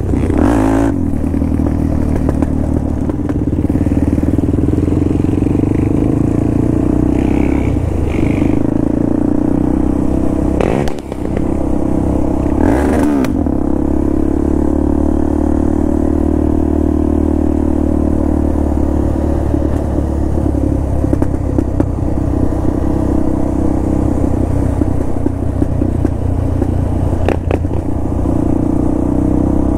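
Motorcycle engine running steadily while riding, its drone holding an even pitch, with a brief dip about a third of the way in.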